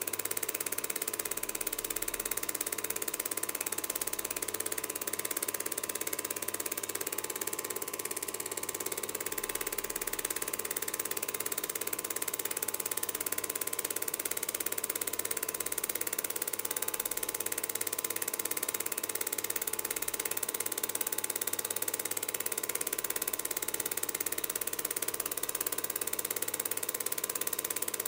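Home-movie film projector running: a steady mechanical whir with an even high hiss.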